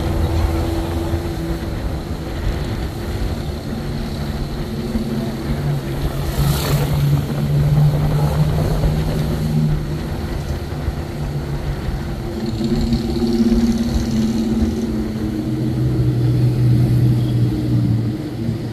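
Jeep engine running while driving, its pitch shifting up and down over the stretch, with a brief knock about six and a half seconds in.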